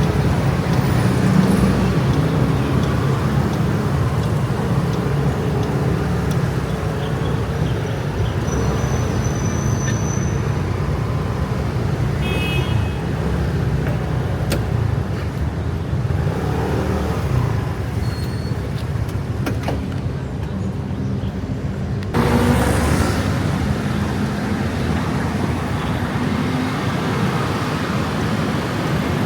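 Dense rush-hour road traffic dominated by a stream of motor scooters, a steady rumble of many small engines and tyres. The sound shifts abruptly about three-quarters of the way through.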